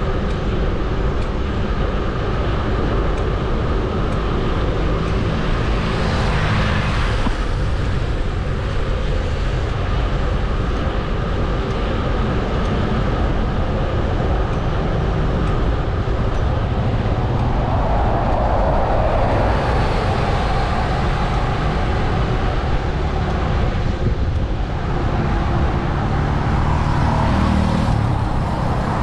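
Wind rumble on a bicycle-mounted GoPro's microphone while riding, over road traffic noise; passing vehicles swell up a few times.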